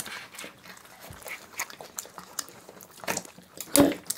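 Small eating sounds of people eating ice cream: scattered clicks and mouth noises of biting and chewing, mixed with plastic ice cream cups and lids being handled. A brief louder vocal sound comes near the end.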